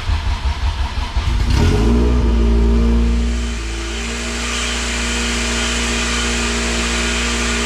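Honda B18 LS/VTEC four-cylinder with an open header being cranked on the starter, catching after about a second and a half, rising briefly and then settling into a steady idle.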